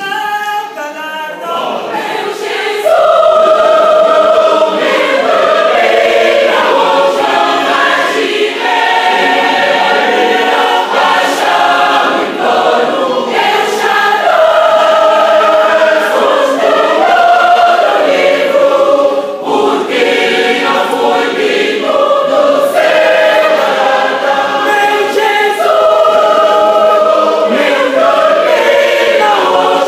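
Mixed church choir of men and women singing a gospel hymn. It starts softer and grows loud about three seconds in, when the full choir comes in.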